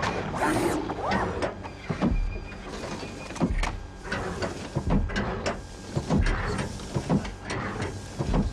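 Film sound effect of the ED-209 enforcement robot walking: a heavy metallic footfall thud roughly every second and a quarter, with servo whirring and clanking from its legs between the steps.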